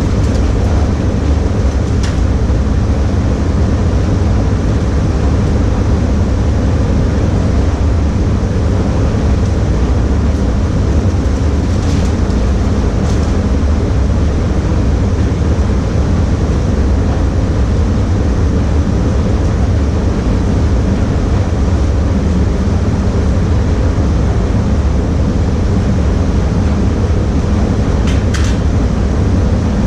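Steady low rumble of a spray paint booth's ventilation running, with a few short faint hisses.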